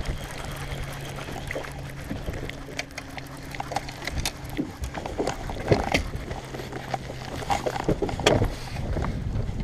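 A hooked bass being fought to the boat and landed: scattered splashes and knocks, busiest in the second half, over a steady low hum that stops about eight seconds in.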